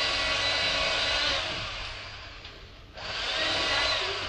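A small electric household appliance motor running with a steady whirring noise. It winds down and fades about two seconds in, then is switched on again abruptly about a second later.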